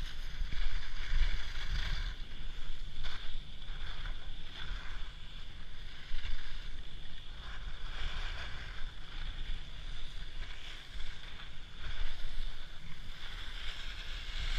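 Wind buffeting an action camera's microphone during a downhill ski run, a low rumble that swells and eases, with the hiss of skis sliding and scraping over packed snow.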